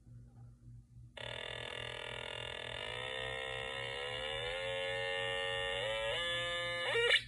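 Buzzy electronic test tone played through a speaker. It starts about a second in, rises slowly in pitch, then steps up twice in quick succession near the end.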